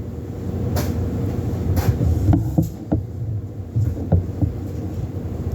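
Handling noise from an air nailer/stapler being turned over and adjusted: several sharp clicks and knocks of its parts over a low rumble.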